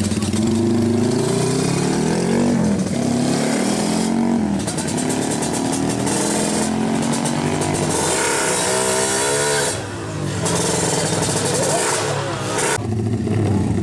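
Honda Tiger drag bike's single-cylinder engine, bored up to 300cc, revving hard as it pulls away, its pitch climbing and dropping back several times as it goes up through the gears.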